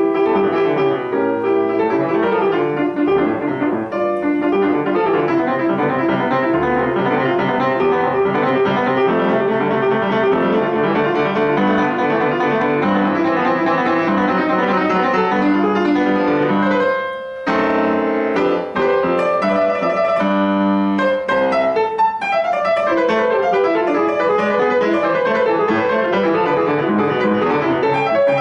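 Solo grand piano playing a dense, fast classical passage. About two-thirds through it breaks off briefly, then comes back with a run of loud chords before flowing runs resume.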